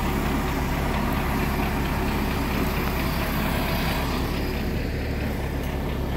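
Diesel engine of a MAZ truck running steadily to power its HMF 2120 loader crane. It is a constant low hum that eases slightly about four seconds in.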